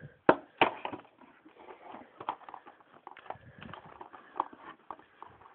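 Cardboard Lego set box being opened by hand: two sharp snaps about a third and two-thirds of a second in, then a run of smaller irregular clicks and crinkles as the box is worked at.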